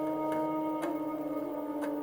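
Background music: held, ringing tones that shift pitch now and then, over a regular ticking beat.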